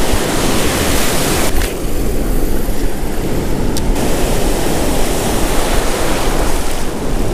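Ocean surf washing and rushing around the feet in the shallows, a steady loud wash of noise.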